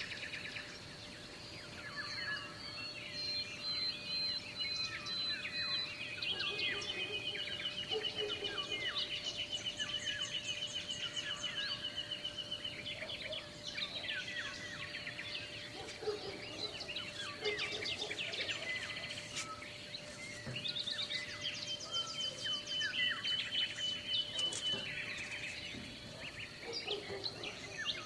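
Many birds singing at once: a dense chorus of chirps and rapid trills, with a faint steady tone underneath.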